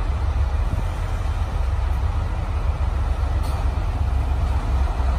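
JR Shikoku KiHa 185 series diesel railcar idling at a standstill: a steady, deep diesel engine rumble.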